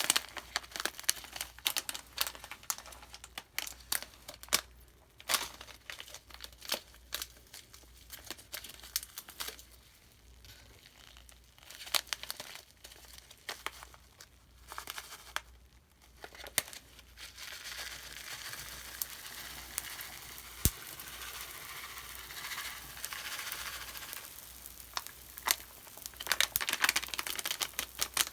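Cleaning-product foam crackling: dense, irregular tiny pops and clicks that thicken into a steadier fizz over the last ten seconds or so.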